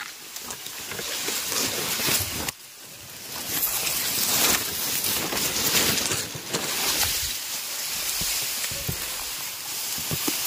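Tall dry grass rustling and scraping against the phone as someone pushes through it: a dense, crackly hiss that drops out briefly about two and a half seconds in.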